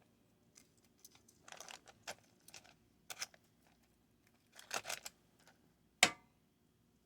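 Kitchen utensil clicking and scraping against an air fryer basket as chicken pieces are turned, in several short bursts. Near the end comes one sharp metallic clank with a brief ring, the loudest sound.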